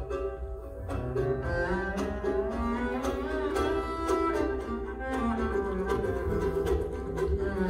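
Live acoustic string music: an upright double bass played with the bow holds long, gliding notes, with two mandolins picking along.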